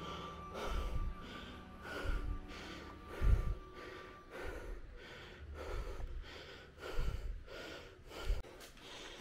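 Heavy, rhythmic breathing of the person filming, about two breaths a second, with low dull thuds under some breaths. A faint steady tone runs underneath for the first few seconds.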